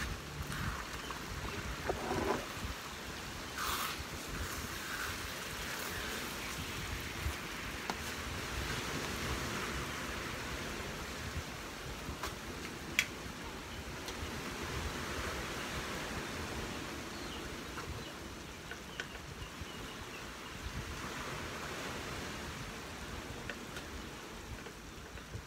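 Thick sweet glutinous rice and jackfruit mixture bubbling and simmering in a wide metal pan, a steady hissing, popping sound, with a spatula stirring and scraping the pan in the first few seconds.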